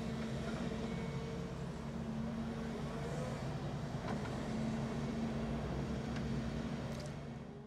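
Diesel engine of a Volvo ECR235EL short-tail crawler excavator running steadily as it swings its boom and bucket while digging, fading out near the end.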